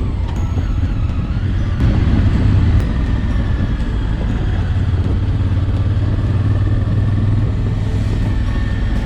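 Honda Africa Twin CRF1000L's parallel-twin engine running steadily on the move, with wind and tyre noise over it; it briefly gets a little louder about two seconds in.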